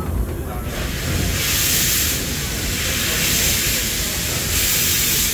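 Steam hissing from a Class 8620 steam locomotive (No. 8630, built 1914) as it hauls the coaches, starting about a second in and swelling and easing in long waves over the low rumble of the train rolling along.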